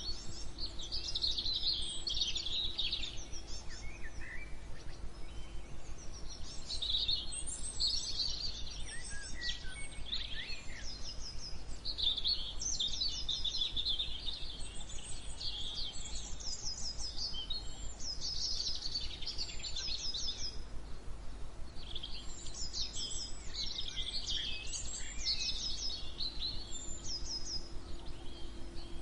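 A chorus of several songbirds singing and chirping at once, with rapid trills and repeated short whistled notes, over a steady low background hum.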